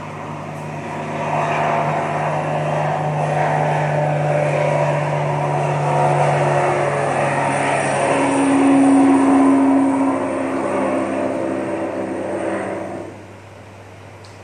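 Vehicle engine sound effect: a steady mechanical hum with a noisy wash over it, a louder, higher steady hum coming in about eight seconds in, and the whole sound dying down about thirteen seconds in.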